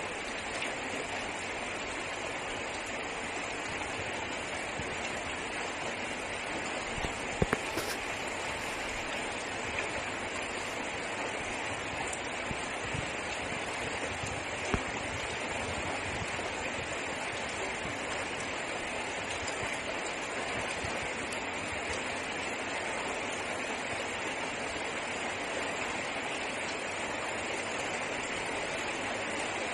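Heavy rain falling steadily on a car's roof and windows, heard from inside the cabin. A pair of sharp clicks comes about seven and a half seconds in, and another about fifteen seconds in.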